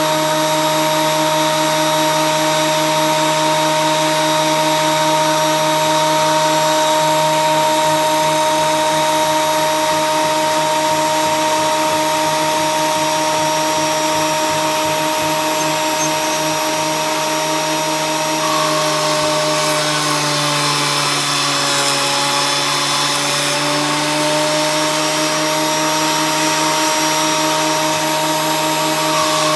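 Ryobi 10-inch benchtop planer running with a steady motor whine. About two-thirds of the way through, a rougher rasping noise joins and the whine sags slightly in pitch for a few seconds, as a board passes through the cutter. It then recovers.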